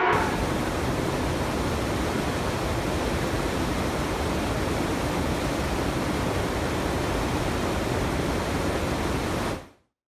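Water rushing steadily over a low river weir, an even, unbroken rush that fades out quickly near the end.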